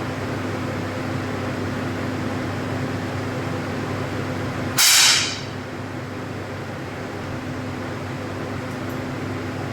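A single 10 m air pistol shot about five seconds in: one short, sharp burst of released air that dies away within half a second. Behind it runs a steady fan hum.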